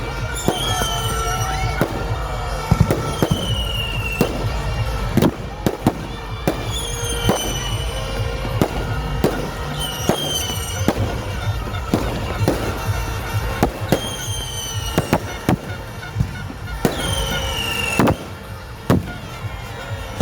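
Fireworks going off in a rapid string of sharp bangs and crackles, with whistling shells whose pitch falls, six of them spaced a few seconds apart.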